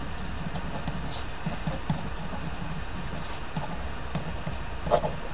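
Pen writing on graph paper on a table: a run of light, irregular taps and scratches as each letter is written, with a slightly louder tap near the end.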